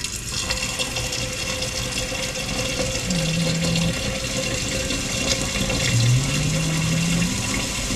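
Kitchen tap turned on and running steadily, water filling a pot of washed rice.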